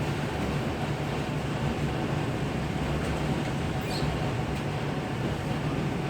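Steady running noise of a vehicle: an even low hum with a hiss over it, and one faint click about four seconds in.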